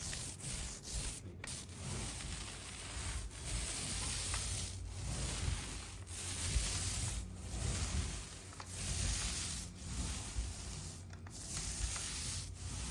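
Repeated rubbing strokes over the repaired drywall ceiling, each lasting a second or so with short breaks between them.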